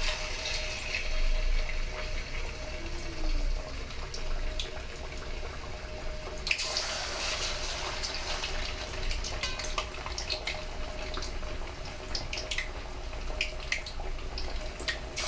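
Marinated pork collar deep-frying in hot oil in a wok: a steady sizzle scattered with sharp crackles and pops. The sizzling surges louder about six and a half seconds in.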